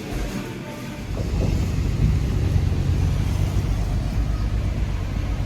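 Street traffic: a low engine rumble that swells about a second in and holds steady.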